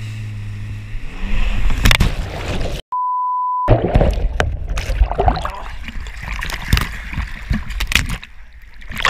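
Jet ski engine running steadily, then an edited-in beep tone lasting under a second about three seconds in. After it, water splashes and churns with sharp knocks of spray against an action camera dunked in the water.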